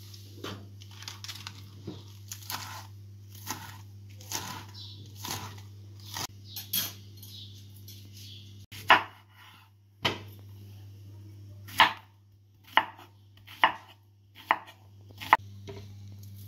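Kitchen knife chopping romaine lettuce on a wooden cutting board, about one stroke a second. After a break about nine seconds in, a run of sharper, louder knife knocks on the board follows.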